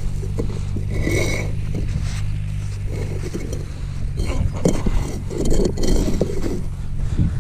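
Concrete foundation blocks being handled: gritty scraping and knocks as a block is slid and lifted off a stack, over a steady low hum.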